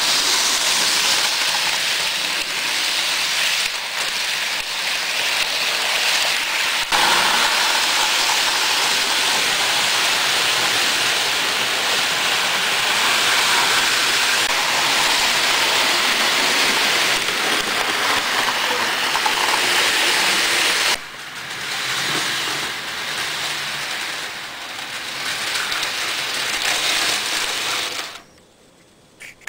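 HO scale model passenger train running on its track: a steady rattling whir of the locomotive's motor and the wheels on the rails. It drops suddenly about two-thirds of the way through, carries on more faintly and unevenly, then falls to near silence near the end.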